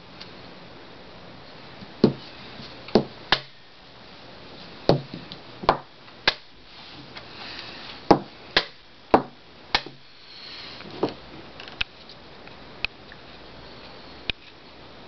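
Chess pieces being set down on the board and chess-clock buttons being pressed in a fast blitz game: about a dozen sharp knocks, irregularly spaced, some in quick pairs.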